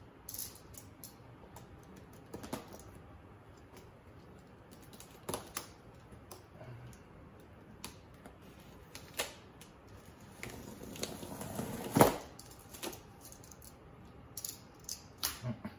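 Hands working open a cardboard box sealed with packing tape: scattered clicks, scratches and rustles as the tape is picked at and peeled, with a longer tearing noise that ends in one sharp, loud snap about twelve seconds in.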